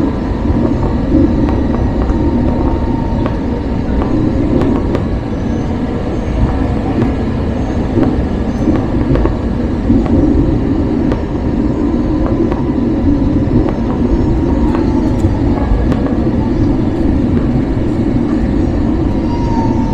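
Loud, steady rumble of an Airbus A321 heard from inside the cabin, with a faint steady whine and a few light rattles over it.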